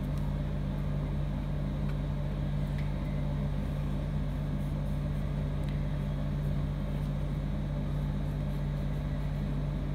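Steady low hum, like an appliance or fan motor running, with no change in pitch or level.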